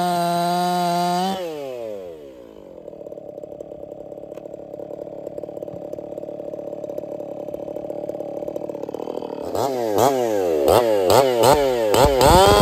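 Echo two-stroke chainsaw at full throttle in the cut, then its revs falling away to idle a little over a second in. After several seconds of steady idle, the throttle is blipped in a quick series, about three revs a second, each rising and falling.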